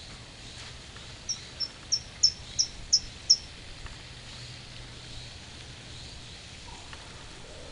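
A small bird gives a quick series of seven sharp, high chirps, about three a second, growing louder as it goes, then stops; faint outdoor background noise runs underneath.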